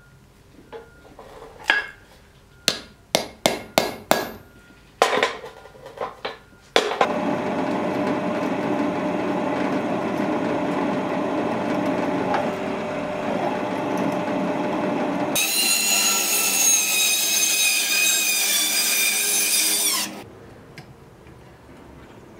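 A hammer strikes a small punch held on a steel piece on an anvil, about ten sharp strikes in the first seven seconds. Then a drill press runs, drilling into a steel block held in a vise, turning to a high squeal as the bit cuts about 15 s in, and stops about 20 s in.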